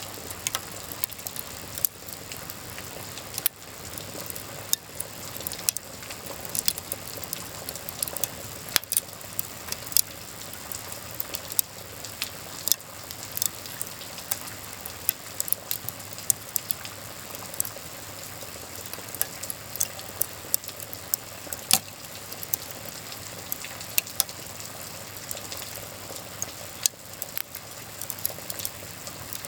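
Wood fire crackling, with frequent irregular sharp pops over a steady rain hiss.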